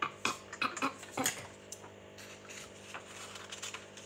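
Light clicks and taps of small hard objects being handled, several close together in the first second and a half, then fainter scattered ticks.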